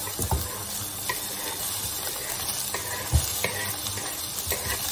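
Chopped onion sizzling in a steady hiss as it is scraped into a hot frying pan, with a few dull knocks of the wooden cutting board and spatula against the pan, the loudest about a third of a second and three seconds in.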